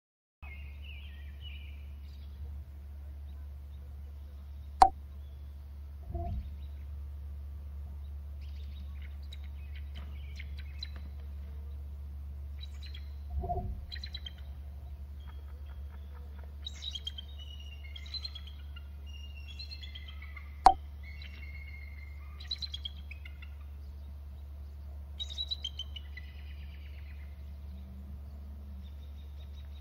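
Birds calling and chirping in short, varied phrases, busiest in the second half, over a steady low hum. Two sharp clicks, about five seconds and twenty seconds in, are the loudest sounds, and there are a couple of duller knocks between them.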